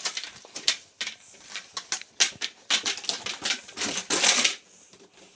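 Hard plastic panels clacking and rattling as they are handled and fitted together: a rapid, irregular run of clicks, with a louder scrape about four seconds in.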